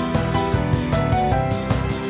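Upbeat, driving instrumental background music with a quick steady beat and a melody moving in short stepped notes.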